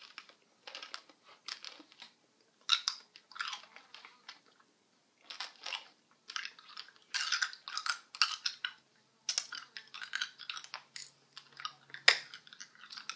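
Hard candies being sucked and chewed in the mouth: irregular wet mouth clicks and crunching, with one sharper crack near the end.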